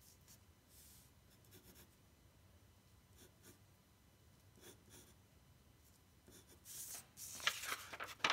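Pencil scratching lightly on drawing paper in short, faint strokes. In the last couple of seconds a sheet of paper rustles louder as it is lifted and slid off the drawing.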